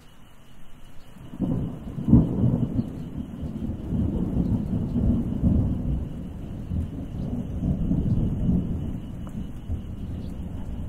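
Rolling thunder: a low rumble swells in about a second and a half in, is loudest about two seconds in, then keeps rumbling unevenly at a lower level.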